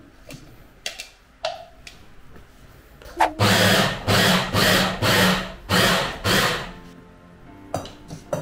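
Electric meat grinder mincing pork, run in about six short pulses of half a second each with a motor hum underneath. A few clicks and knocks come before it.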